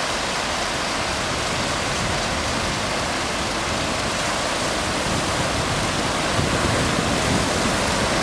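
Surf breaking and washing up the beach, a steady rushing noise.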